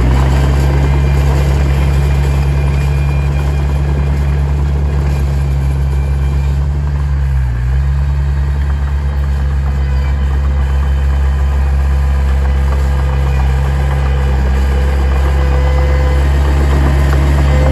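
Heavy-equipment diesel engine running steadily, with a brief dip in engine speed about halfway through.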